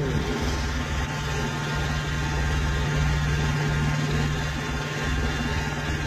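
Scag Tiger Cat zero-turn mower's gasoline engine running steadily at constant speed. Its pitch settles down just as it begins, then holds.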